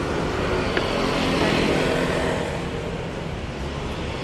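Street traffic: a motor vehicle engine running close by, easing off a little past halfway.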